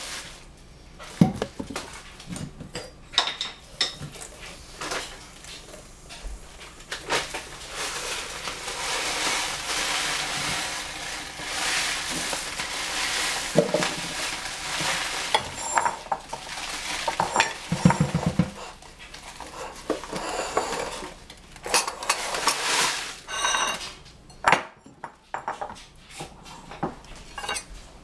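Kitchen dishes and utensils clattering and clinking as they are handled on a tiled counter, in scattered knocks with a few ringing clinks. There is a steady rushing noise for several seconds in the middle.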